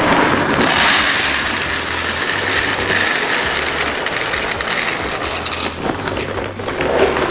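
A vehicle on the move: a low engine hum under a loud, steady rushing noise.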